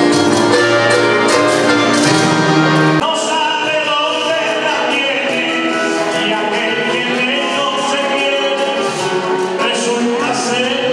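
Live guitar music from a small acoustic group for about the first three seconds, then an abrupt change to a man singing into a microphone over instrumental accompaniment.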